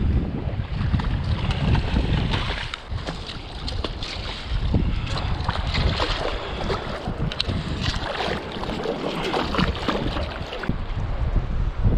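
Wind buffeting the microphone over shallow surf, with water splashing as a hooked bluefish thrashes at the surface close by.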